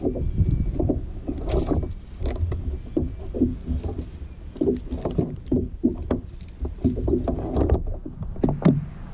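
Irregular knocks and thumps on the plastic deck of a Hobie kayak as a freshly landed Spanish mackerel and gear are handled, over a steady low rumble of wind and water.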